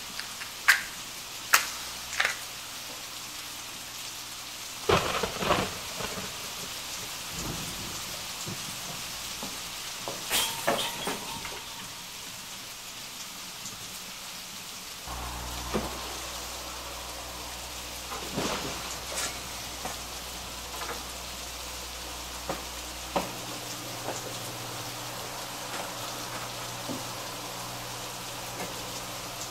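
Steady rain, with scattered sharp clicks and knocks, and a low thunder rumble that comes in suddenly about halfway and cuts off abruptly some eight seconds later.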